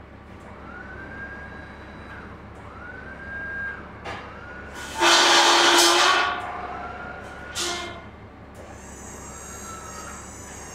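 Truck-mounted crane hoisting a small steel welding table on slings: its motor whines up and falls away in a series of short runs. There is a loud rushing burst about halfway through and a shorter one soon after.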